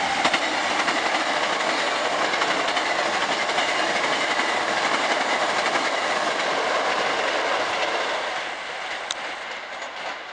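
Hankyu 5300-series seven-car electric train passing close by at speed: a steady rush of wheel and rail noise with rapid clickety-clack of wheels over rail joints. It fades after about eight seconds as the last car goes by, with one sharp click near the end.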